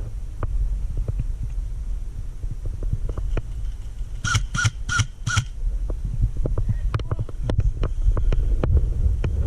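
A crow cawing four times in quick succession, about four seconds in, over a steady low rumble and scattered clicks and rustles.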